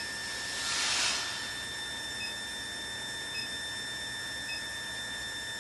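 JL-25KW induction melting furnace running with a steady high-pitched whine. A hiss swells briefly about a second in, and faint short pips come about once a second.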